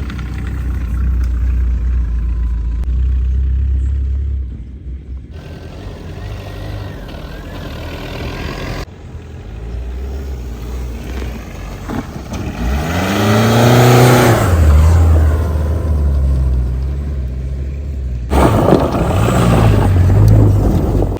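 Car engine running in a series of short edited clips, with a rev that rises and falls in the middle.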